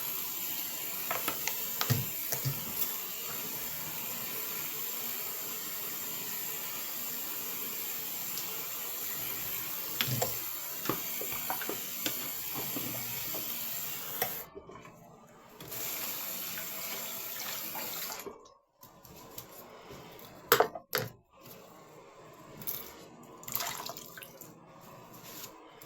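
Water from a tap running steadily into a sink to test a freshly cleared, formerly hair-clogged drain. The flow drops out briefly a little over halfway through, runs again, then stops about three-quarters of the way in, leaving a few sharp knocks.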